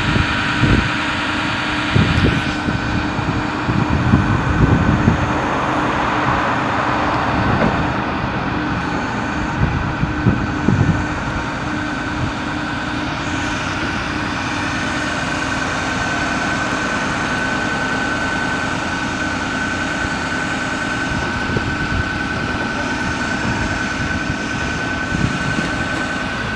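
The bucket truck's 6.4-litre diesel engine running steadily to power the Altec aerial boom's hydraulics while the boom is raised and extended, with a steady high whine over the engine hum. Irregular low thumps come in the first ten seconds or so.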